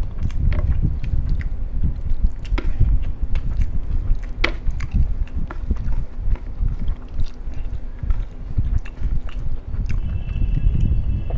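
Close-miked eating sounds: chewing and mouth smacking on masala rice and chicken, with the wet squish of fingers mixing rice and gravy and sharp clicks and crackles now and then.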